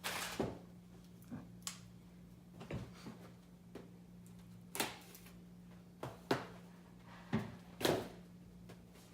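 Packing tape being peeled and torn off a small package, with the wrapping handled: a string of short rips and rustles, about seven in all, with quiet gaps between them.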